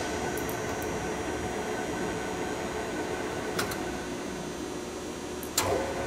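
Feeler turret lathe running with a steady hum and whine. A light click comes about three and a half seconds in, and a sharper clunk near the end as a lever is worked, after which a slightly different steady tone sets in.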